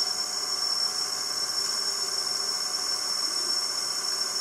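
Electric tilt-head stand mixer running steadily at its low speed setting, a constant motor whine as the beater turns through the oil-and-sugar batter while eggs are added.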